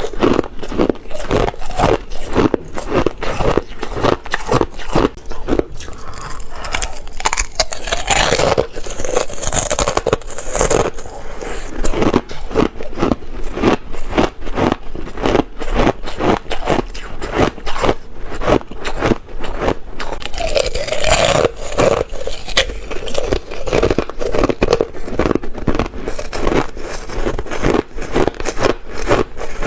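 Thin ice being bitten and chewed close to the microphone: a rapid, continuous run of sharp, crackly crunches, several a second, with a few longer grinding stretches.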